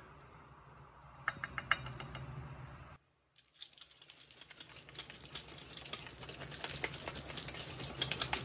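A plastic scoop knocking a few times against the rim of a stainless steel shaker bottle as protein powder is tipped in. Then, after a brief drop-out, the capped shaker bottle is shaken hard, making a fast rhythmic rattle that grows louder.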